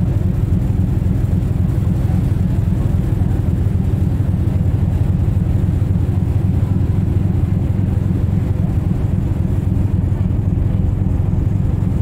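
A ferry's engines running with a steady low rumble, heard from the open deck.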